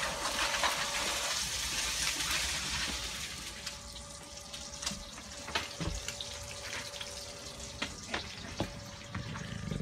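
Kitchen sounds of dinner being made: a steady hiss like running water or food sizzling, louder for the first few seconds and then fading, with scattered clicks and knocks of utensils or dishes.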